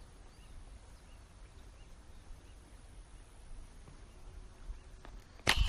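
Quiet outdoor background with faint, evenly repeated small bird chirps early on. Near the end comes one sudden loud crack: a slingshot firing a fishing arrow at a tilapia.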